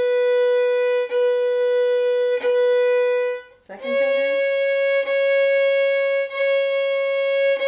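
Violin (fiddle) playing slow, sustained bowed notes of an A major scale, four bow strokes to each note. Open A rings with a short break at each change of bow direction, then about three and a half seconds in it steps up to B, fingered with the first finger on the A string.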